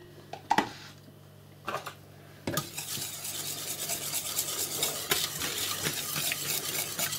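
A wire whisk stirring sour cream into a creamy sauce in a stainless steel pot: a fast, continuous scraping and rattling of the wires against the pot that starts about two and a half seconds in. Before it come a couple of light knocks.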